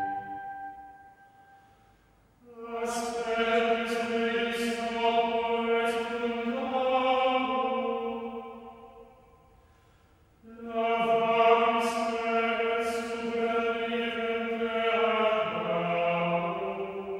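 Background music: voices singing slow, sustained chords in a choral or chant style, in two long phrases with a near-silent pause between them.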